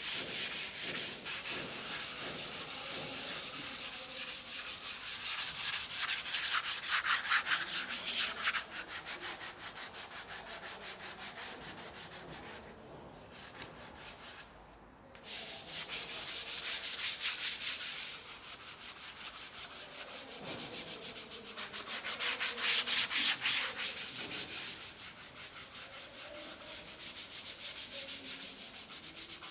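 Sandpaper rubbed back and forth over a surface in quick, dense strokes. The rasping comes in spells that grow louder and ease off, with a short pause about halfway through.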